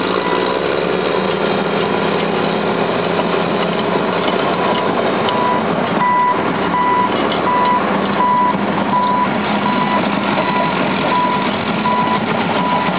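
Heavy diesel engine of a Caterpillar crawler dozer running hard under load as it pushes a loaded tractor-trailer through mud, rising in pitch in the first second. A backup alarm beeps steadily over it, about three beeps every two seconds, most clearly from about five seconds in.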